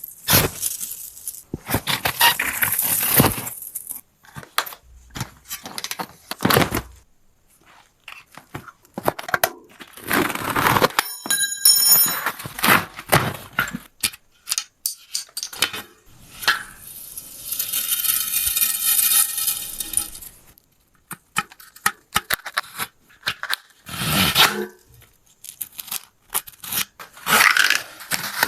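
Intermittent mechanical handling noise: scrapes, rattles and clicks in separate bursts, with a short metallic ring about twelve seconds in and a longer rushing scrape lasting a few seconds past the middle.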